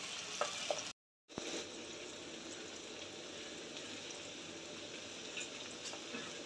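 Onions, green chillies and curry leaves sizzling in hot oil in a pot: a steady frying hiss. A few scrapes of a wooden spatula come in the first second, and the sound cuts out briefly about a second in.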